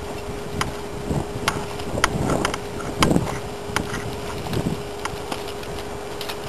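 Horse's hooves thudding on the loose dirt of a round pen as a palomino Morgan mare circles, an uneven beat of dull thuds with sharp clicks among them, over a steady hum.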